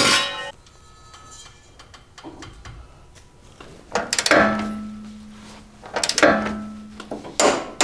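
A short scrape of a steel jack stand being moved at the start, then three sharp metal clinks about two seconds apart, each left ringing, from wrenches on the bolts of a rear lower control arm as they are torqued down.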